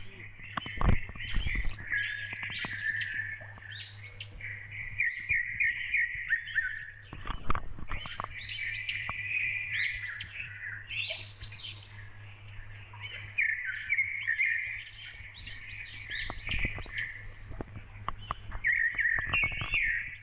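A chorus of small birds chirping and twittering continuously, many short calls overlapping, with a few dull knocks in clusters at about one second in, about seven seconds in and about sixteen seconds in.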